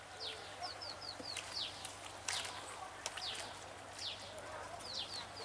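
Small birds calling: a string of short, high chirps, each falling in pitch, coming irregularly. A few sharp clicks or splashes are mixed in, the strongest about two seconds in.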